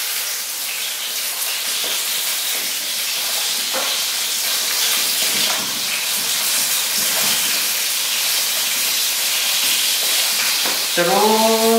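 Steady hiss throughout, with soft, irregular wet squelches from a hand kneading minced beef, chicken and a raw egg together in a plastic bowl.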